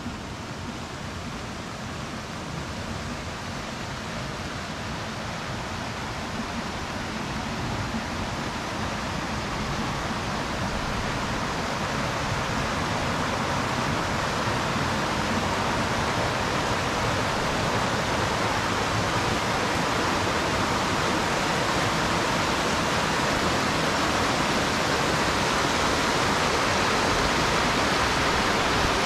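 Small rocky creek rushing over rocks, a steady rush of water that grows gradually louder.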